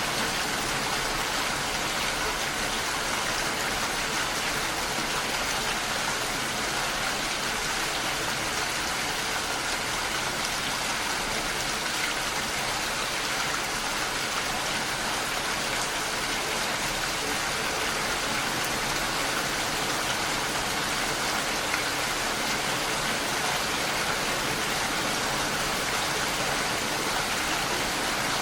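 Steady rain falling, an even hiss of many drops with no thunder or other sounds standing out.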